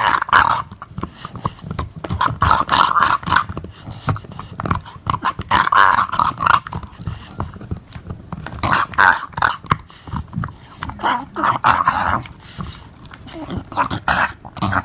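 English Bulldog growling and grumbling in repeated bursts every couple of seconds while gnawing on a bone, with clicking and scraping of teeth on the bone between the growls.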